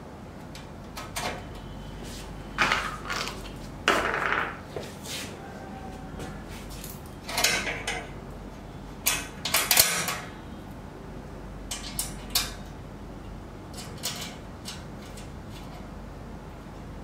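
Slotted galvanized steel drag chain tray clinking and rattling against its metal brackets and bolts as it is handled and fastened: a series of irregular metal clanks and clicks, loudest about ten seconds in.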